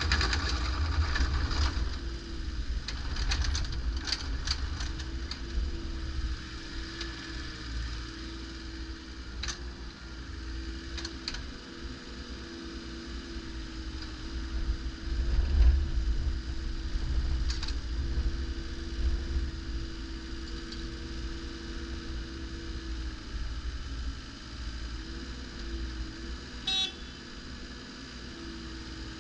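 Volvo EC18D mini excavator's diesel engine running, its low rumble swelling and easing, with a steady whine over it. Occasional sharp metallic knocks come through the first few seconds and now and then after, and a brief high-pitched tone sounds near the end.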